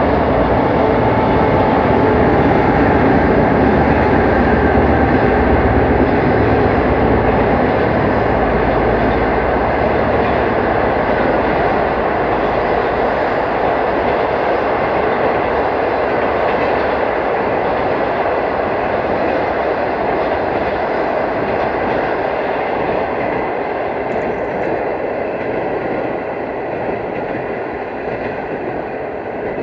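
Long diesel-hauled passenger train rolling past on the rails, its coaches' wheels rumbling and clacking. The sound fades steadily as the tail of the train draws away, the deep rumble dying out after about ten seconds.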